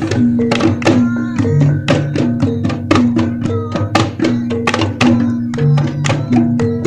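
Reog kendang drums, small double-headed hand drums, beaten in a quick rhythm of sharp strokes, about three to four a second, over low held notes that change pitch every second or so.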